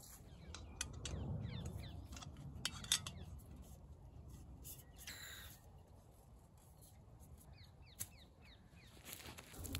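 Soft clicks and knocks of a camping gas canister and screw-on stove being handled and fitted together. A bird calls in the background in two quick runs of short falling notes.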